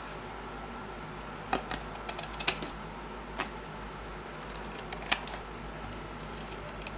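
A dozen or so scattered light clicks and taps, the sharpest about two and a half and five seconds in, over a steady low hum.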